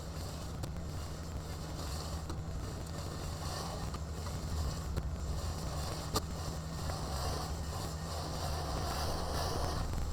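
Kubota BX compact tractor's three-cylinder diesel engine running steadily at work, a low hum under a broad hiss, with one sharp click about six seconds in.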